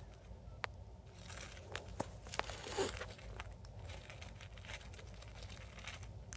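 A small pet burrowing through wood-shaving bedding: soft rustling and crinkling of the shavings with scattered sharp clicks, the loudest a little under three seconds in.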